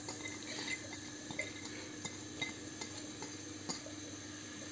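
Chopped onions dropping into a pan of garlic frying in olive oil, giving a faint sizzle with scattered light taps as pieces are scraped off a china plate.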